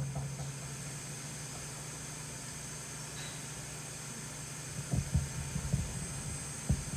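Steady electrical hum and hiss from a karaoke amplifier and echo preamp system switched on and idle, with a few short low thumps about five seconds in and once more near the end.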